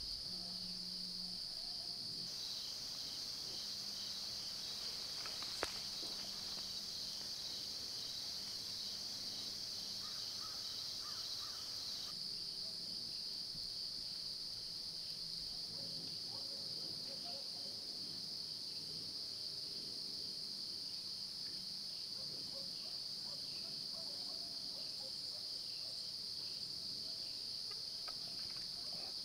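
Steady, high-pitched insect chorus, the continuous shrilling of crickets and katydids in late-summer woods, with one sharp click about six seconds in.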